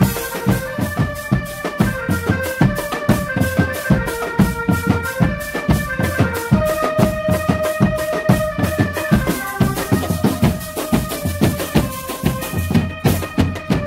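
A drum band playing: big bass drums and other drums beating a dense, rapid rhythm, with a melody line of held notes on top, one held for about two seconds midway.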